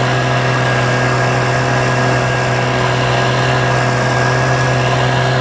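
8 hp outboard motor running steadily at constant speed, pushing an inflatable boat along.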